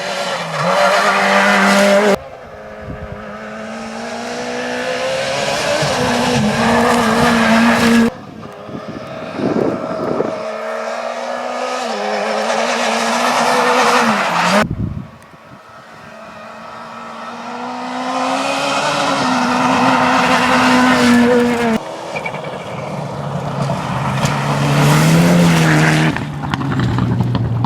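Rally cars at full throttle on a gravel stage, engines revving up and changing gear as each car comes closer. About five separate passes follow one another, each cut off abruptly.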